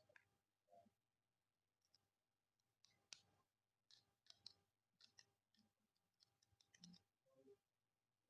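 Near silence, with a few faint, scattered clicks of plastic snap-fit model-kit parts being handled and fitted together.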